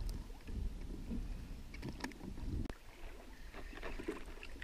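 Low wind rumble on the microphone with a few small knocks and rustles as fishing tackle and a caught fish are handled on a plastic kayak.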